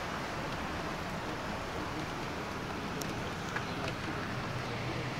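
Heavy rain falling in a steady hiss, with a few faint ticks near the middle.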